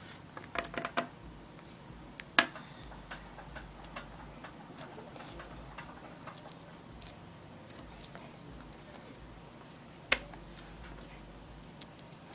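Small plastic toy figure tapped and shuffled on a tabletop: scattered light clicks and ticks, a quick run of taps in the first second, and two sharper knocks, one about two seconds in and one about ten seconds in.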